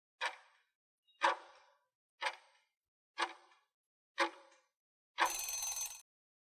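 Countdown-timer sound effect: five stopwatch ticks about one second apart, then a short ring of under a second marking time up.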